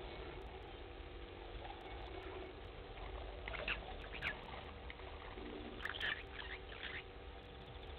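Several short, high-pitched chirps or squeaks from a small animal, in two brief clusters about three and a half and six seconds in, over a faint steady hum.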